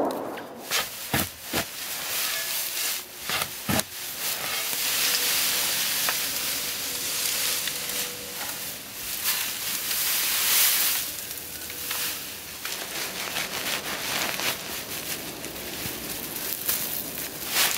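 Dry hay rustling and crackling as it is handled, with several short sharp knocks in the first four seconds.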